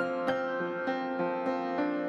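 Background piano music, notes struck about three times a second.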